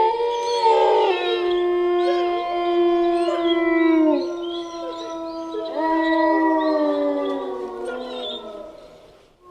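Several wolves howling together: long held notes at different pitches overlapping, with some voices sliding up and down, dying away near the end.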